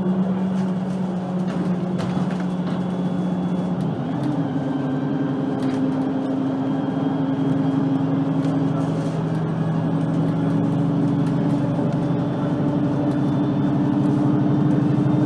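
VDL Citea LLE-120 city bus under way, its engine running steadily. About four seconds in the engine note changes to a new pitch, then holds and climbs a little toward the end.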